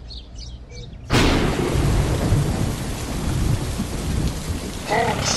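Faint bird chirps, then about a second in a sudden crack of thunder. Heavy rain follows, with thunder rumbling underneath.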